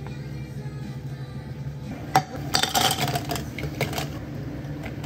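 Cafe utensils and containers being handled on a counter: one sharp click about two seconds in, then about a second of clinking and clattering, with a few lighter clicks after.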